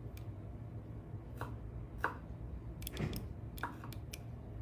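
Kitchen knife cutting canned pineapple chunks into small pieces on a cutting board: several short, irregularly spaced taps of the blade against the board.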